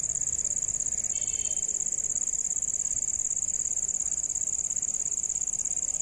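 Insects, crickets, trilling in a steady high-pitched chorus with a fast, even pulse.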